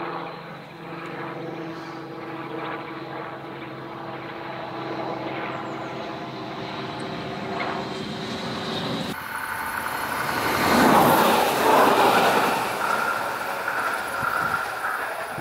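Stadler RS1 diesel railcar running: a steady distant diesel drone with several held tones, then a close pass-by in which engine and wheel-on-rail noise swell to their loudest about eleven seconds in and fade as the railcar pulls away.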